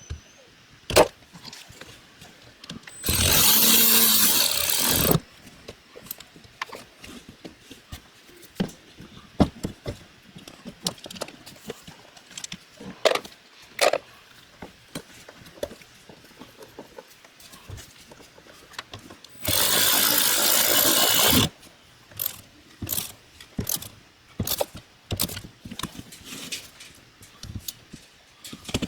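A power tool run in two bursts of about two seconds each, one a few seconds in and one about two-thirds of the way through, with scattered clicks and knocks of tools being handled between them.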